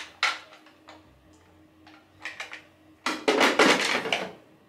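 Clicks and clattering of small hard items being handled: one sharp click at the start, a few light ticks about two seconds in, and a louder run of clattering a little after three seconds.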